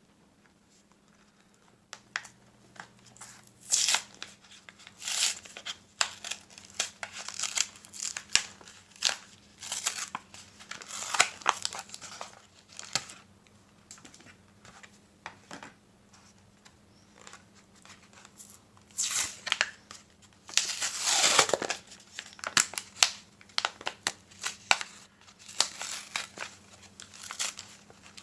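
Foil Yu-Gi-Oh! booster pack wrappers crinkling and being torn open by hand, starting a couple of seconds in as many short rustles, with one longer, louder rip about three quarters of the way through.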